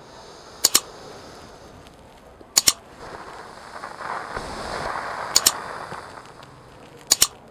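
Four quick double mouse-click sound effects from an on-screen like-and-subscribe animation, spaced about two seconds apart. Between the second and third clicks there is a soft, slow hiss of a breath out through the mouth, the exhale on which the pelvic floor is tightened in this exercise.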